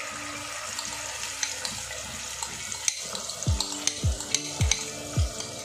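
Hot ghee with whole spices sizzling and crackling as brown onion paste is scraped into the pot with a spatula. About three and a half seconds in, a low thump starts repeating about twice a second.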